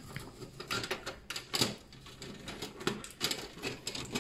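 Irregular plastic clicks and knocks from the Epson EcoTank ET-2711 printer's casing and rear panel being handled, with the loudest knock about a second and a half in.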